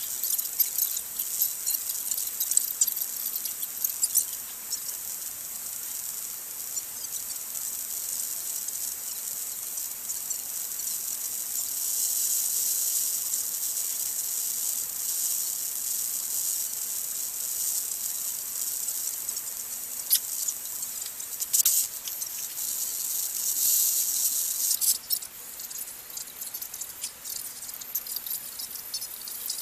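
Steady high-pitched background hiss that swells and fades, with a faint low hum under it and a few sharp clicks near the end.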